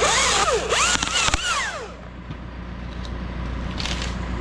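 Chainsaw revving up and down as it cuts a limb for about two seconds, with a sharp snap about a second in, then a steadier, lower engine hum.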